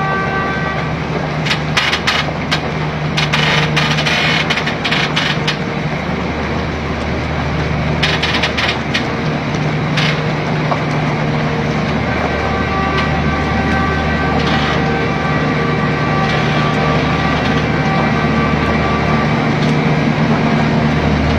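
Engine of a heavy multi-axle girder transporter running with a steady low drone as it creeps forward under load. A higher whine comes and goes, and there are scattered sharp clicks and crackles in the first half.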